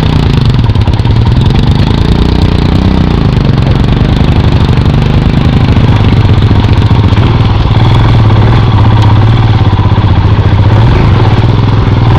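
Motorcycle engine running steadily at low speed, its note wavering slightly up and down with small throttle changes.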